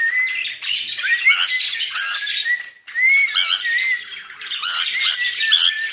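A flock of caged pet birds, cockatiels among them, chattering together: many overlapping short whistled chirps and harsh squawks.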